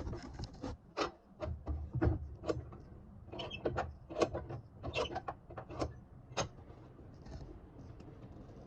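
A run of irregular sharp clicks and knocks, as of tools or pieces being handled, thinning out over the last couple of seconds.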